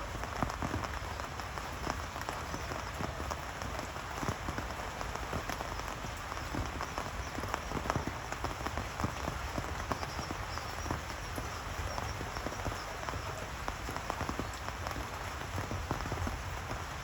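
Steady rain falling, with many small drop impacts throughout.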